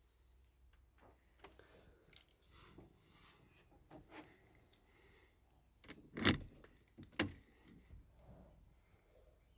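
Car keys jangling with scattered light clicks and two louder knocks about six and seven seconds in, with no starter motor or engine running: the van does not crank.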